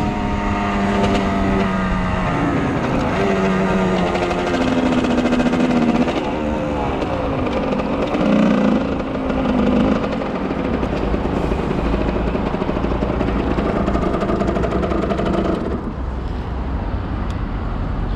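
50cc motorbike engines running and revving, their pitch rising and falling as they speed up and slow down. More than one engine is heard at once, easing off near the end.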